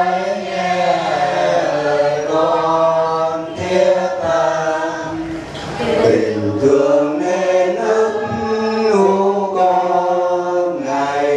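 A group of voices singing a Catholic hymn of thanksgiving together, slowly, in long held notes.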